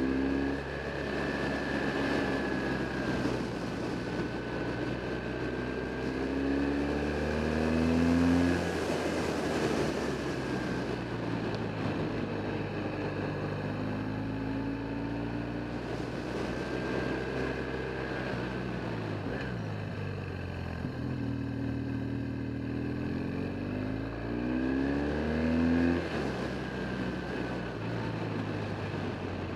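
Motorcycle engine heard from on board, pulling up through the revs about two seconds in and again past the twenty-second mark, easing off and dropping in pitch in between as the bike takes the bends, over steady wind and road noise.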